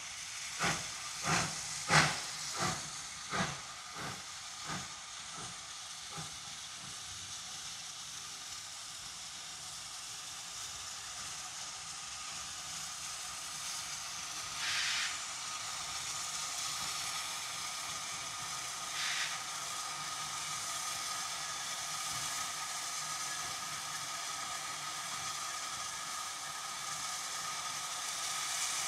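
PKP Ol49 steam locomotive moving off with a train: a run of exhaust chuffs about every 0.7 s, fading away over the first six seconds. Then a steady steam hiss grows louder as the engine comes closer, with two short bursts of escaping steam about halfway and a thin steady tone joining the hiss in the second half.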